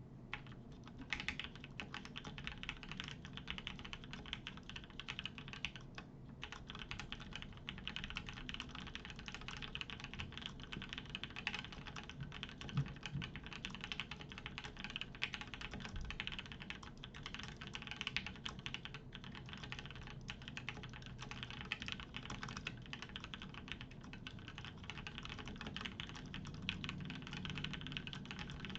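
Fast, continuous typing on a CannonKeys Practice TKL mechanical keyboard with lubed Gateron Yellow linear switches, an FR4 plate and YMDK keycaps: a dense, uneven patter of key clacks.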